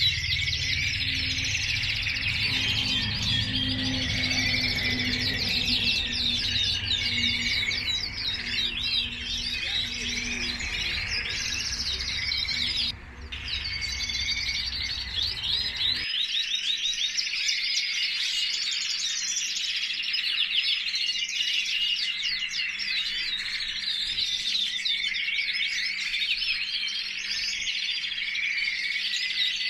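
Many caged canaries singing and chirping at once, a dense chorus of rapid trills. A low hum underneath drops out about halfway through.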